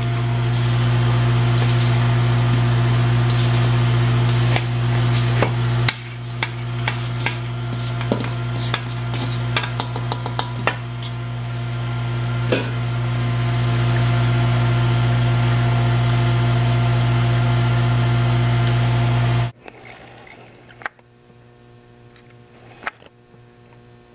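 A steady, loud electric motor hum, with clicks and scrapes as investment plaster is stirred with a spatula in a rubber mixing bowl. The hum cuts off suddenly about 19 seconds in, leaving quieter handling sounds and a couple of light knocks.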